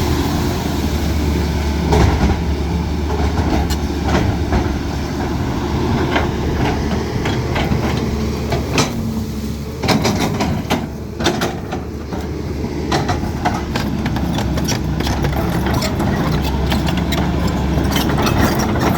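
Caterpillar 320D hydraulic excavator's six-cylinder diesel engine running steadily, with repeated sharp knocks and cracks throughout as the machine works.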